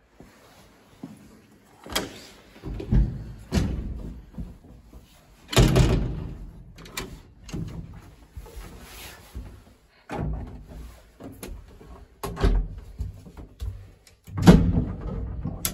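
Doors of a 1938 MOC passenger lift being opened and shut by hand: a string of clunks, bangs and latch rattles from the shaft door and the cabin's wooden doors, the loudest about five and a half seconds in and another near the end.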